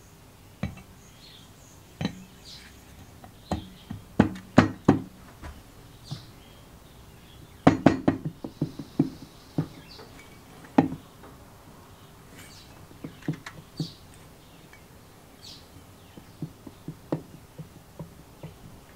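Aluminium crankcase halves of a Robin EC17 two-stroke engine knocking and clinking against each other as they are fitted together over the crankshaft by hand. The knocks are sharp and scattered, with a busy run about four seconds in, another about eight seconds in, and lighter ones near the end.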